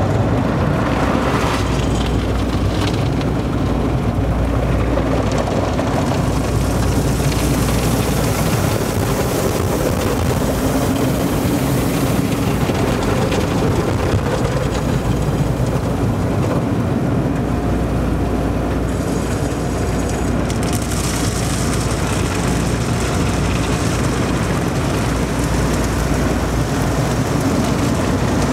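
Automatic car wash heard from inside the car: water spray drumming on the windshield and body over the steady rumble of the wash machinery. The high spray hiss comes and goes, strongest about a third of the way in and again over the last third.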